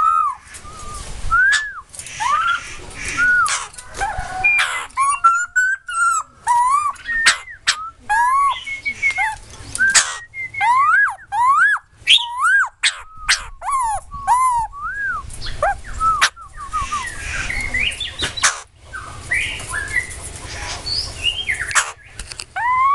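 Caged laughingthrush (khướu đầu bạc) singing: a long series of loud whistled notes, each rising and falling, mixed with quick chattering runs and sharp clicks.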